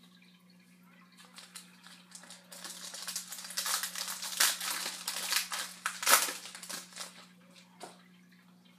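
Trading-card pack wrapper crinkling and rustling as it is torn open and handled, a run of crackles for about six seconds with two louder crunches near the middle.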